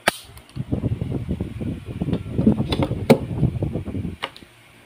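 A sharp metallic click from a 1911 pistol, then about three and a half seconds of low rustling and knocking handling noise with a few sharper clicks as the pistol is handled and laid on a table.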